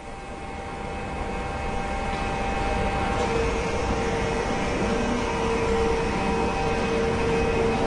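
Dutch train pulling away: a rumble with a steady hum that grows louder over the first three seconds, then holds, with a strong tone coming in about three seconds in.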